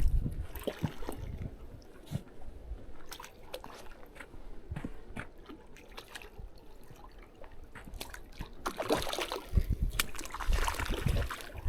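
Water lapping and trickling, with scattered small clicks; it grows louder for a few seconds near the end.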